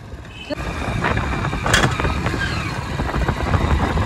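Strong wind buffeting the microphone: a dense, gusting low rumble that starts abruptly about half a second in, with one sharp click near the middle.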